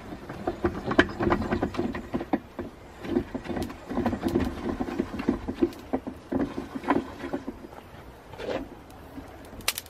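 Propane burner of a homemade keg foundry furnace running with an uneven, fluttering rumble. Scattered clicks and knocks of the steel lid being shifted, with a sharper pair near the end.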